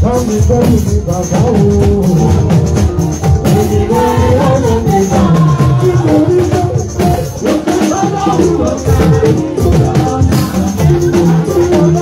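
Live church choir of women singing into microphones, amplified through a PA, over drums and percussion.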